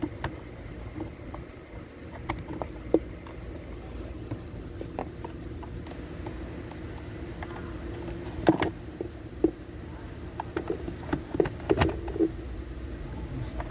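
Irregular sharp clicks and light knocks of hand work on steering-column parts, bunched about two-thirds of the way in and again near the end, over a steady hum.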